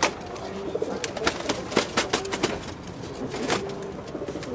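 Domestic pigeons cooing low in a loft, with sharp clicks and taps scattered through.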